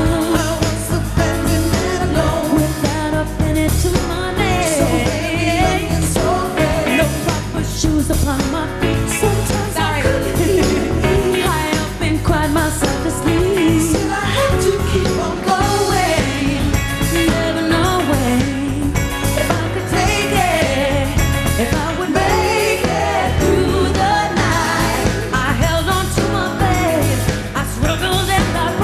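Female pop vocalist singing with a band, her voice gliding up and down through bending runs over a steady drum beat.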